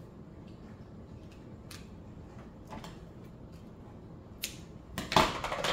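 Double-sided tape and paper being handled: faint scattered taps and rustles, a click about four and a half seconds in, then a short, louder rasp of tape coming off its roll near the end.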